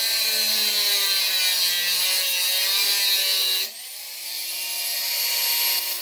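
Angle grinder with a cutoff wheel cutting through steel plate, a steady high-pitched screech. A little past halfway the cutting sound breaks off and gets quieter, then a whine rises slowly as the sound builds again.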